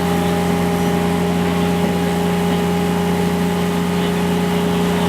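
Train engine running at a steady pitch, an even low drone with a constant hum and no change in speed.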